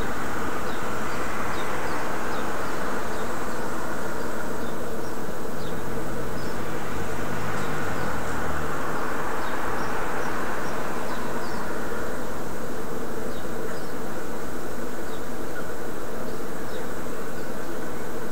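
Steady, loud buzzing hum of outdoor street ambience, with a car driving past on the street about halfway through, and faint short chirps scattered throughout.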